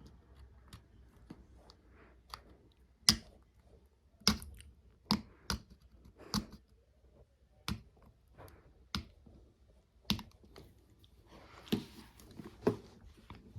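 Small hard parts of a Nokia Asha 302 phone being handled: about a dozen sharp, irregular clicks and taps, with a brief scraping rustle shortly before the end.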